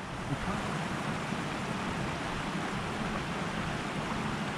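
Small creek running steadily, water spilling over a beaver dam.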